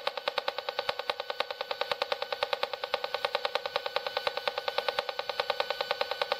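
Handheld RF radiation meter's audio output sounding a WiFi network's signal as a rapid, even ticking buzz of about ten pulses a second, the rhythm of a WiFi access point's beacon.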